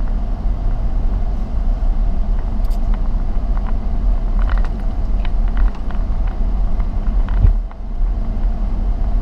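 Vehicle driving over a potholed road: a steady low rumble of engine and tyres with small rattles and knocks, and a heavier jolt about seven and a half seconds in.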